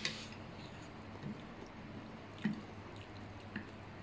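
Quiet wet eating sounds from a bowl of curry noodle soup: a few short, squelchy clicks and drips, roughly a second apart, the sharpest right at the start.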